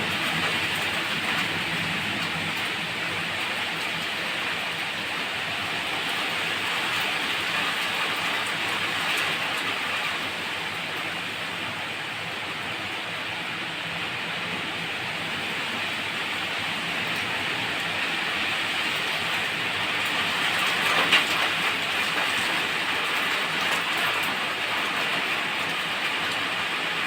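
Wind blowing, a steady rushing noise that swells briefly about three quarters of the way through.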